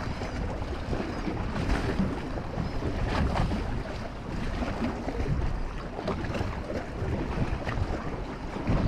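Wind buffeting the microphone over choppy water washing against a boat's hull.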